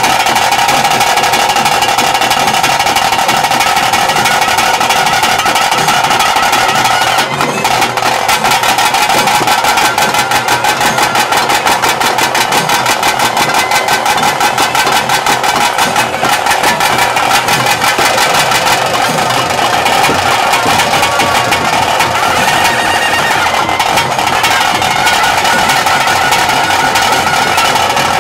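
Loud traditional ritual music of a Tulu nema: a high, steady held pipe tone with fast, even drumming beneath it, the drumming densest through the middle.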